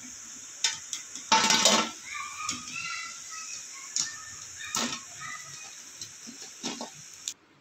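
Tapioca vadai sizzling in hot oil in an iron kadai as they are lifted out with a wire spider strainer, with several metal knocks and clinks of the strainer against the pan and a steel plate, the loudest about one and a half seconds in. The sizzle cuts off suddenly near the end.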